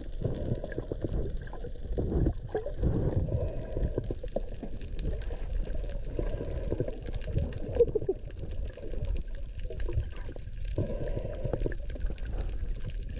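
Muffled underwater sound heard through a camera's waterproof housing: a low, uneven rush of water that swells and drops, easing briefly about ten seconds in.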